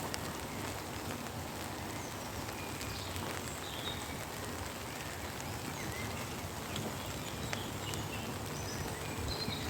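Steady rain falling, with a few faint, short bird chirps now and then.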